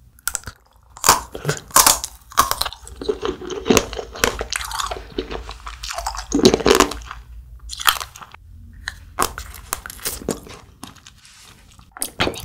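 Biting and chewing of a frozen Nik-L-Nip wax-bottle candy: a run of sharp crunches and crackles as the frozen bottle is bitten and chewed.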